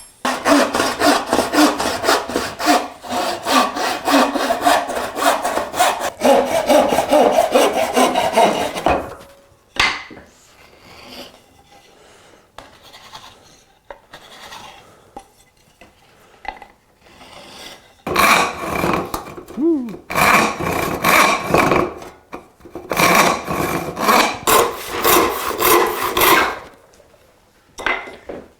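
Hand saw cutting through a wooden dowel in quick, repeated back-and-forth strokes: one long bout of about nine seconds, a pause with light handling sounds, then a second bout near the end.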